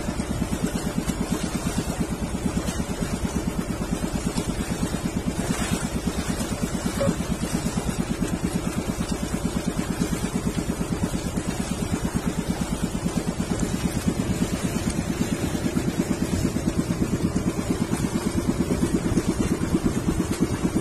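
Small engine of an outrigger boat (bangka) running steadily under way, a fast, even chugging.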